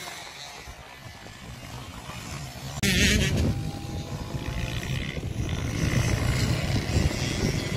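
Dirt bike engine running as the bike rides around a motocross track, heard from a distance. It grows louder after about three seconds, where a short loud noise also comes in.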